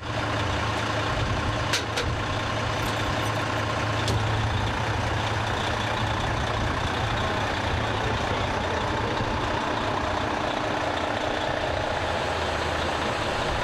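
A heavy vehicle's engine idling steadily under constant road-scene noise, with a couple of short clicks about two seconds in.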